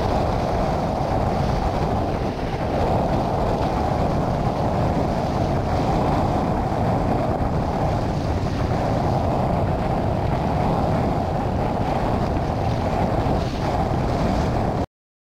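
Strong storm wind buffeting the microphone, with choppy surf splashing on the shallows; steady throughout, then cut off abruptly near the end.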